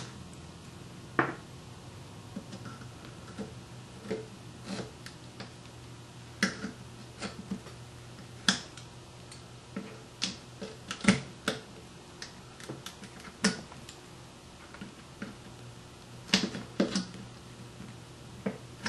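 Needle-nose pliers picking and pulling hot glue off a small cooling fan: irregular sharp clicks and snaps, a few in quick clusters, over a faint low hum.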